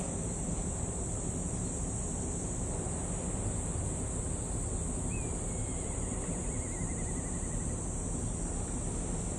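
A steady high-pitched insect chorus over the low rumble of wind and surf. About five seconds in, a faint bird gives a single descending, trilled whistle lasting a couple of seconds.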